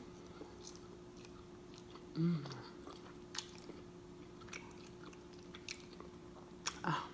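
Close-up chewing and lip smacking of a person eating, quiet, with scattered small mouth clicks and a couple of louder smacks, about two seconds in and near the end, over a steady low hum.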